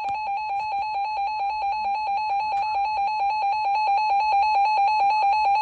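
Electronic alert tone: a single steady-pitched beep pulsing rapidly and evenly, growing slightly louder. It is the alarm that sounds ahead of a new severe weather warning on an emergency alert or weather radio broadcast.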